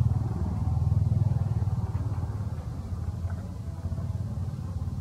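An engine running steadily with a low hum, loudest in the first second or so and then easing off a little.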